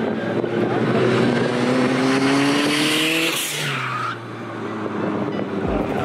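Toyota Corolla drift car at full throttle, the engine's pitch climbing steadily for about three seconds, then dropping off sharply as the throttle lifts. Tyre squeal slides down in pitch as the car slides.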